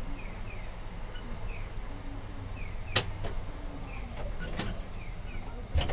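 Inside the cab of a stationary Sapporo streetcar: a steady low hum, with three sharp clicks, the first about three seconds in and the last near the end. Faint short high chirps repeat irregularly in the background.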